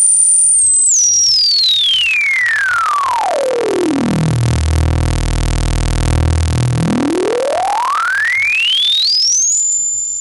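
God's Box Gem four-pole high-pass filter in full self-oscillation, fed a square wave: its resonant tone sweeps down from a high whistle to a low hum over about four seconds as the cutoff is turned down, holds low for about two seconds, then sweeps back up high, with the square wave's buzzing harmonics heard above the cutoff.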